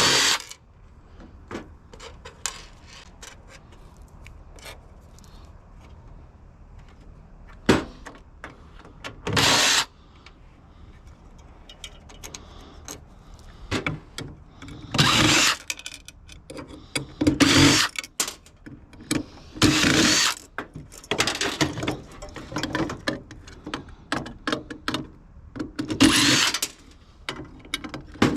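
A power drill running in several short bursts of about a second each, driving screws out of sheet-metal casing, with clicks and clinks of metal parts and screws being handled in between.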